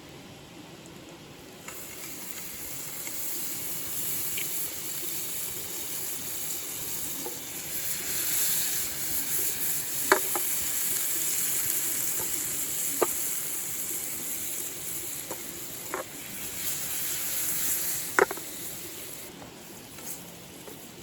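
Food sizzling in a hot frying pan: the sizzle starts suddenly about two seconds in and dies down near the end, with four sharp clicks along the way.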